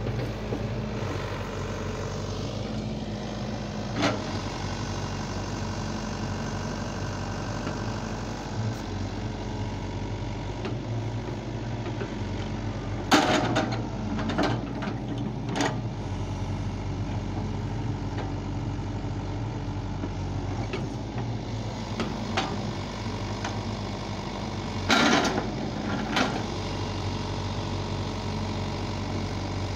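SANY SY80 excavator's diesel engine running steadily as the machine digs, with a few sharp knocks from the working bucket and arm, the loudest about 13 and 25 seconds in.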